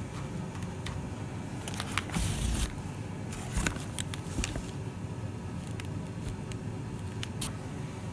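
Shrink-wrapped firework battery boxes being handled and shifted inside a cardboard carton: scattered taps and knocks, with a short rustle about two seconds in, over a steady low hum.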